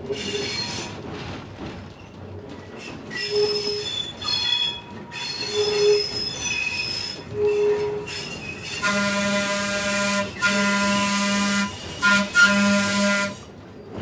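Trolley car's steel wheels squealing on curved track, with several high-pitched squeals. About nine seconds in, the car's horn sounds the grade-crossing signal: long, long, short, long.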